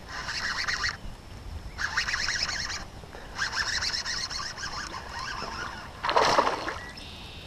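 Fishing reel being cranked in three short spells, a fine rapid whirring tick, as a hooked largemouth bass is reeled in. A louder rush of noise comes about six seconds in.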